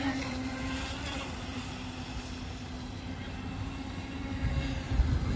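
RC speedboat's motor whining steadily as the boat runs across the pond, with low rumbling bursts near the end.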